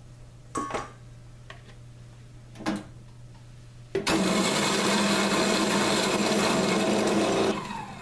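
Two light clicks, then a Grindmaster commercial coffee grinder starts suddenly about halfway through and grinds dried butternut squash pieces on a coarse setting. It makes a steady loud grinding over a motor hum for about three and a half seconds, then stops just before the end.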